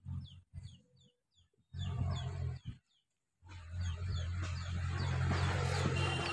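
A low rumble that cuts out and back in twice before holding steady, with a bird's short falling chirps repeated two or three times a second over it.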